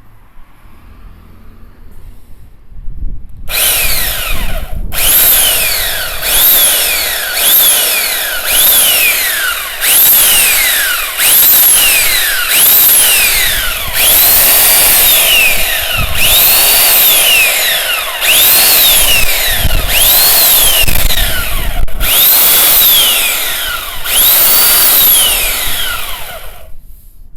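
YAMAZEN 100 V corded electric chainsaw starting up about three and a half seconds in and running loudly, its motor whine rising and falling in pitch over and over, about every second and a half, until it stops shortly before the end.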